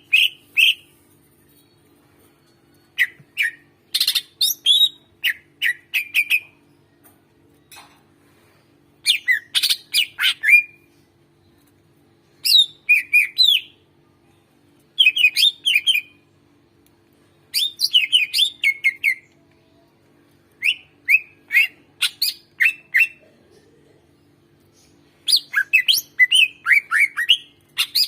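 Cucak ijo (leafbird) singing in repeated short bursts of rapid, sharp chirping notes, one phrase every couple of seconds with pauses between, over a faint steady low hum.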